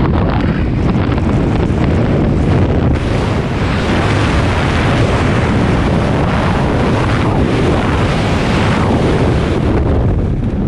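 Freefall airflow blasting across a GoPro's microphone: a loud, steady rush of wind noise.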